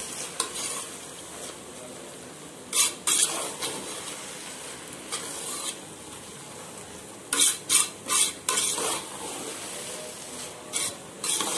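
A metal spoon stirs and scrapes sweet rice around a metal pot, with a steady sizzle from the hot pan underneath. Sharp scrapes and clinks against the pot come in short clusters: about three seconds in, again around seven to nine seconds in, and near the end.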